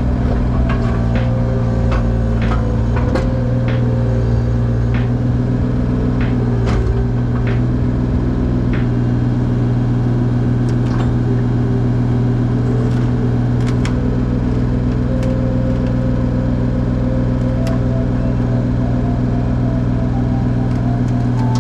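Bobcat E35 mini excavator's diesel engine running steadily, heard from inside the cab, with a higher whine that shifts in pitch now and then as the arm works. Sharp clicks and knocks come scattered throughout.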